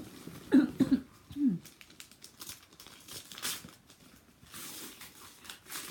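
Gift wrapping paper crinkling and tearing as a present is unwrapped, with rustling through the second half.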